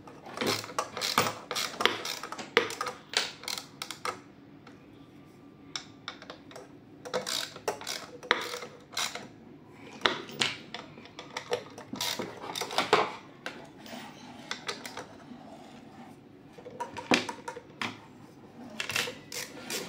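Irregular clicking and clinking of screws and small metal and plastic parts being handled and set down, in bunches with short pauses between.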